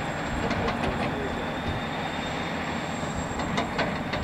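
Heavy earthmoving machinery working in an open-pit mine: a steady mechanical running noise with scattered sharp clicks and knocks.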